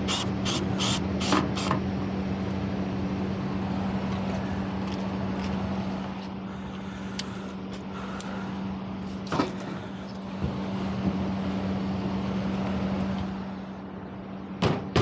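A steady, low, even-pitched machine hum, like an engine or motor running. It is joined by a quick run of about six clicks at the start and a few single knocks later on.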